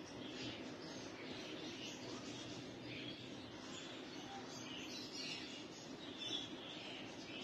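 Birds chirping on and off, faint, over a low steady hum.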